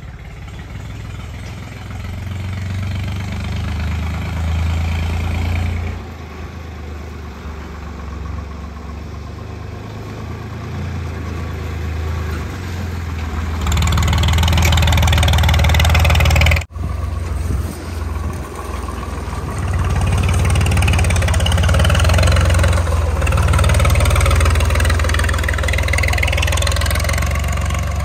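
Swaraj 735 FE tractor's three-cylinder diesel engine running steadily as it hauls a trolley loaded with soil, growing louder as it draws near. The sound cuts out briefly about two-thirds of the way through, then the engine runs loud again.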